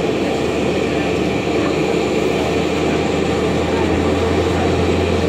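Bombardier CRJ-200 regional jet's General Electric CF34 turbofan engines running steadily at idle on the apron, under a low engine drone that cuts off near the end.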